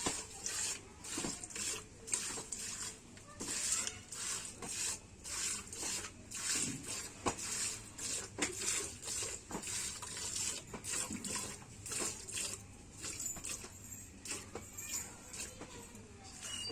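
Milk squirting into a pail as a cow is milked by hand, a rhythmic run of short hissing squirts at about two a second.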